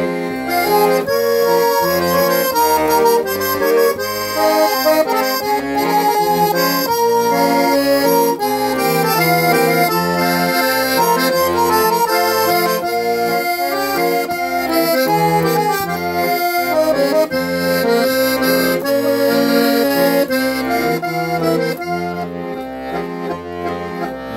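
Accordion playing an instrumental interlude between verses of a hymn: a melody in held notes over a steady, regular bass-and-chord accompaniment.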